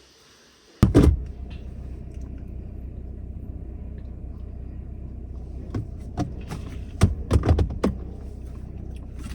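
A car door slams shut about a second in, then a low steady rumble of a car running, heard from inside the cabin, with several small clicks and knocks near the middle and later on.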